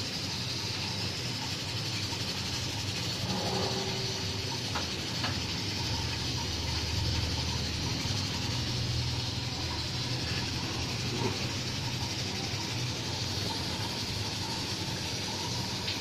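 Gas stove burner running with a steady hissing rush, with a few faint clinks of a spoon stirring a small steel bowl heating over it.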